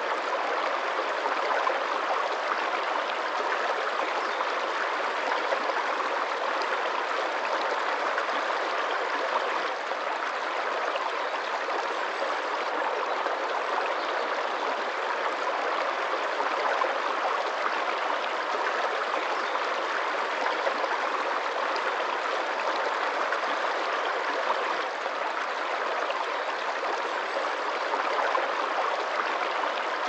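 Shallow stream running over rocks and pebbles: a steady water sound.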